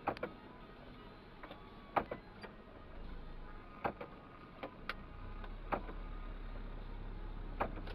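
Inside a moving vehicle's cab: scattered sharp clicks every second or two over a low engine and road hum that grows louder about five seconds in.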